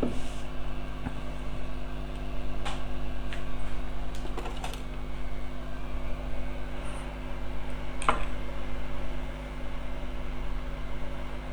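Steady hum of a hot air rework gun's blower running while capacitors are heated off a phone circuit board, with scattered light clicks and taps.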